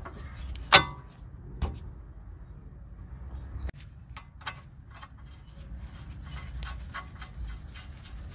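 Metal clinks and clicks from a car's track rod end being fitted: its ball-joint stud knocking into the steering knuckle and the nut spun onto the thread by hand. A sharp clink a little under a second in, a few single clicks, then a run of light ticks in the second half.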